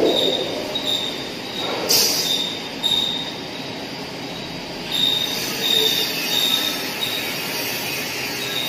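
Factory machinery noise: a steady din with a high-pitched whine that comes and goes in short pulses, and a brief sharp clank about two seconds in.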